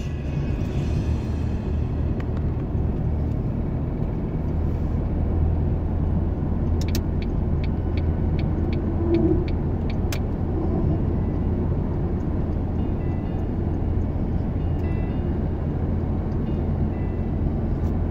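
Car driving at speed, heard inside the cabin: a steady low hum of engine and tyres on asphalt. A run of faint light ticks comes through around the middle.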